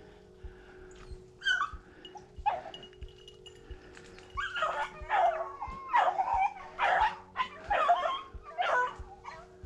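Rabbit hounds giving mouth on a rabbit's trail: two barks early on, then a run of barks about one a second in the second half. The hounds bark like this while they are running the rabbit by scent.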